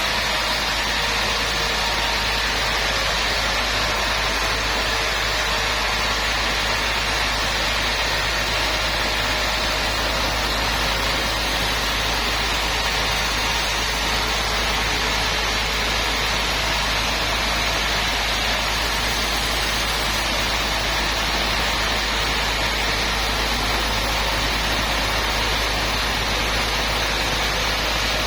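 Sawmill machinery running steadily, an even, unchanging mechanical noise with a constant low hum.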